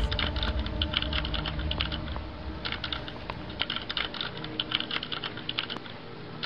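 Rapid computer-keyboard typing, a fast run of clicks that pauses briefly a little over two seconds in and then carries on, over a low rumble in the first couple of seconds.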